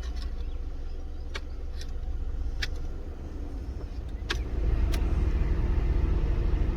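VW Golf Mk5 heater/AC blower fan running with an irregular ticking, a really annoying strange noise. About four and a half seconds in it gets louder, with a steady hum added.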